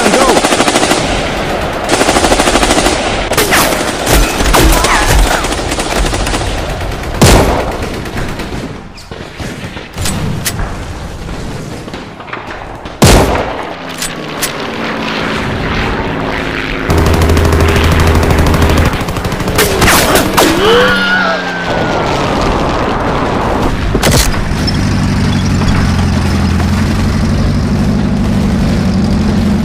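Battle sound effects: rapid machine-gun bursts in the first few seconds, then single loud rifle shots about seven and thirteen seconds in, with scattered shots after. Near the end a steady engine drone sets in.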